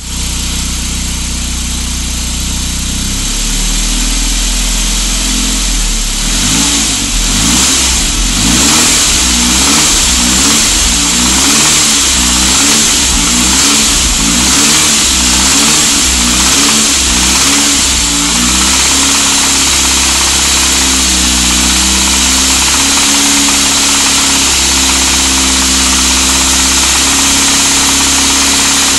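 Saab 9000 engine idling, then revved up and down repeatedly and held at raised revs, with a knocking noise that comes in above about 1500 rpm. The owner has been told it is a bottom-end knock and wonders whether the timing chain or its tensioner is to blame.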